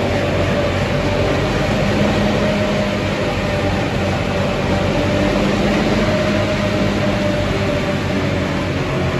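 Heavy vehicle drivetrain running steadily in the top gears, fifth and then sixth, on a newly installed remanufactured ZF 6 WG 260 powershift gearbox: an even mechanical drone with a faint steady whine over it. The gearbox is working properly.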